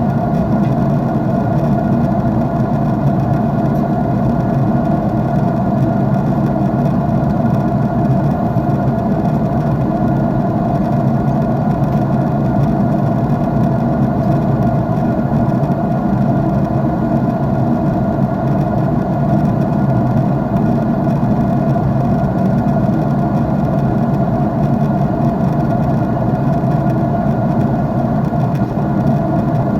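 Steady drone of an airliner's jet engines in cruise, heard inside the passenger cabin by a window: a deep, even rumble with a constant hum over it and no change in pitch or level.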